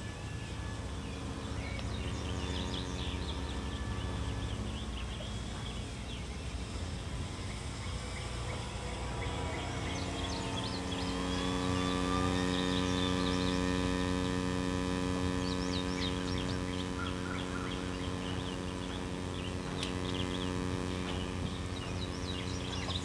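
Electric motor and propeller of a radio-controlled Dynam Beaver floatplane flying overhead. Its steady drone comes in less than halfway through, dips briefly in pitch, and is loudest a few seconds later as the plane passes closer. Birds chirp now and then.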